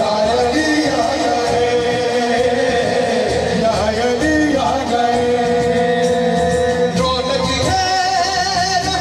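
A man singing a devotional Punjabi song into a microphone, holding long wavering notes, over a steady beat on a large frame drum (daf).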